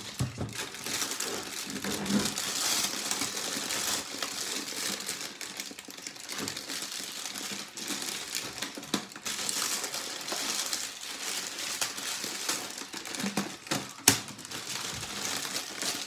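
Plastic inner bag of a cardboard cereal box crinkling as it is handled and pulled open, with one sharp click about fourteen seconds in.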